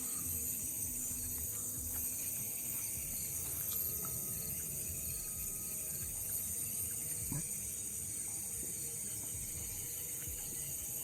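Steady high-pitched insect chorus, crickets or cicadas, over low rumbling handling and walking noise, with a small knock about seven seconds in.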